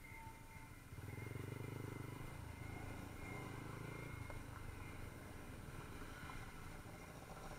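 Motorcycle engine running at low revs as the bike slows to a stop. The sound comes in about a second in and eases off after about four seconds.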